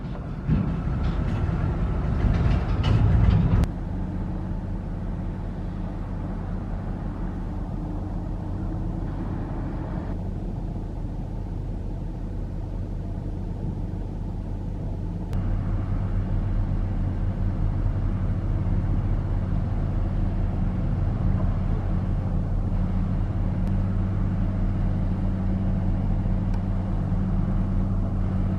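Diesel engines of heavy earthmoving machinery running steadily, with clanking in the first few seconds. The sound changes abruptly about 4 and 15 seconds in.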